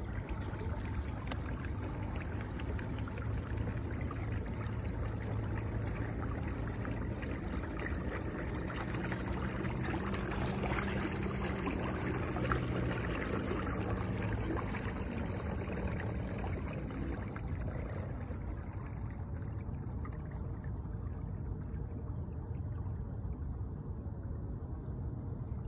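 Water rushing and trickling along a kayak hull as it is pushed by an electric trolling motor, with a faint steady low hum. The water noise eases somewhat in the last several seconds.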